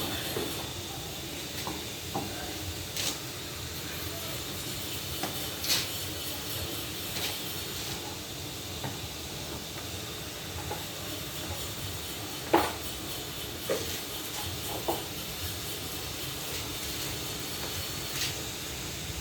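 Light, scattered clicks and taps of a screwdriver and screws on the scooter's plastic air filter housing being put back together, about a dozen over a steady hiss, the sharpest one about two-thirds of the way through.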